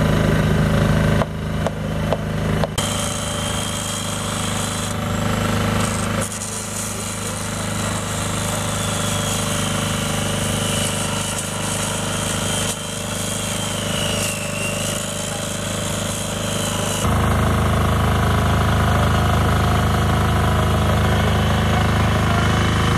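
An angle grinder cutting into a metal water main, its high whine wavering and dipping as the disc bites, over the steady hum of a petrol generator. After about 17 seconds the grinding stops and the generator's hum is louder and closer.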